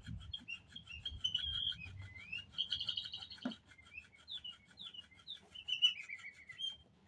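Chirping bird calls from a cat's bird toy: a quick run of high tweets and short rising and falling whistles that stops shortly before the end, with a single soft knock about three and a half seconds in.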